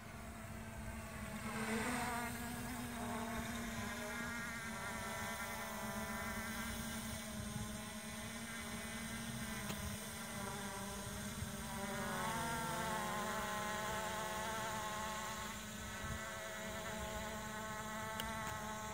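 Hubsan H501SS quadcopter's propellers buzzing steadily as it flies overhead, the buzz wavering up and down in pitch about twelve seconds in.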